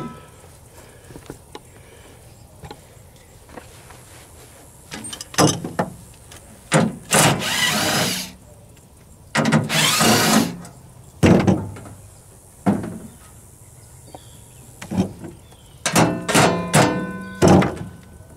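Cordless drill running in two short bursts, backing out screws from a sheet-metal meter pedestal cover, among scattered knocks. Near the end, a run of ringing metallic clanks as the loosened cover panel is handled.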